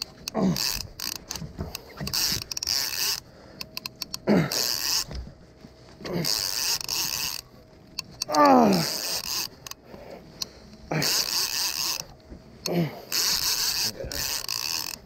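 A conventional fishing reel is cranked in whirring bursts of about a second, roughly every two seconds, while a yellowtail is fought on a bent rod. Short falling tones come at the start of several bursts.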